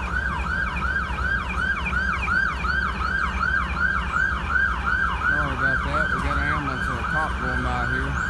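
Emergency vehicle siren in fast yelp mode: a rapid up-and-down whoop repeating about four times a second. About five seconds in, a lower, wavering tone joins it.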